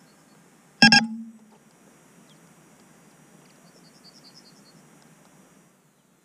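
A single short, loud beep about a second in, buzzy in tone, with a low hum trailing off briefly after it. A few faint high chirps follow.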